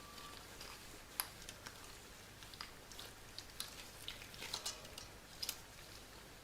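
Faint, scattered clicks and taps of a door closer's small metal parts being handled as its spring is worked back into its hole.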